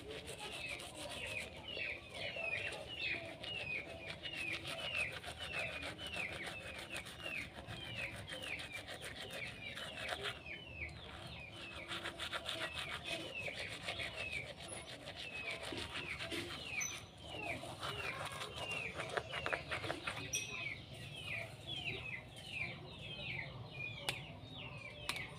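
Toothbrush scrubbing back and forth in a mouth full of toothpaste foam, a wet rubbing, while a bird chirps over and over, about two short falling chirps a second.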